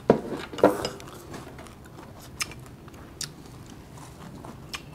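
A person biting into and chewing a mouthful of fresh raw vegetables, with two crisp crunches in the first second followed by a few softer mouth clicks.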